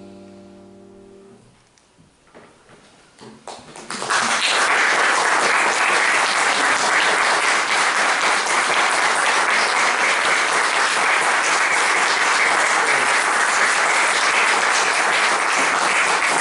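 The last chord on a grand piano dies away into a moment of near quiet. A few scattered claps follow and swell, about four seconds in, into loud, steady audience applause.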